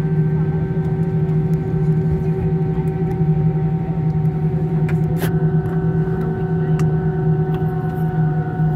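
Airliner's jet engines running at idle, heard from inside the cabin: a steady loud drone with several pitched tones over it. A faint click comes about five seconds in.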